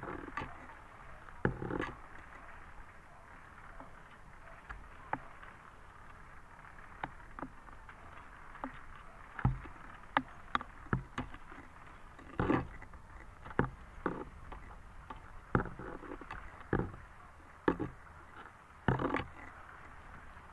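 Choppy lake water lapping and slapping close to the microphone: a steady wash with irregular sharp splashes and knocks every second or two.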